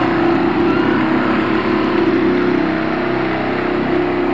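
Small engine of a bumper boat running steadily: a constant, even drone.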